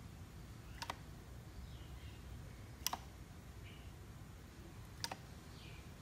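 Plastic clicks from the controls of a pistol-grip RC transmitter being worked by hand: three sharp clicks about two seconds apart.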